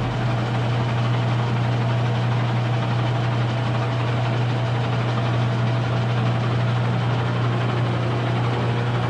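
Weiler DA260 engine lathe running with the spindle turning and no cut being taken, in its low spindle-speed range: a steady hum from the headstock drive.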